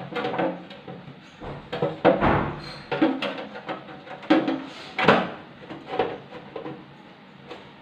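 Irregular knocks, clicks and scrapes of a kitchen chimney's blower motor being handled and fitted into its sheet-metal fan housing, dying down near the end.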